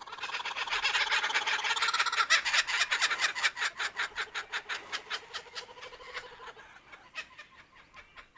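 A family of laughing kookaburras calling together in their laughing chorus: a rapid run of repeated notes that swells within the first second, peaks, then dies away near the end.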